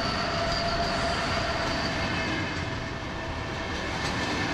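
Train running on rails, a steady rumble with a faint high whine over it that fades out about two seconds in.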